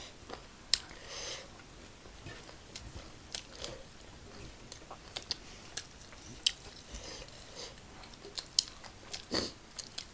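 Close-up eating sounds: chewing fried chicken, with scattered crisp crunches and wet mouth clicks.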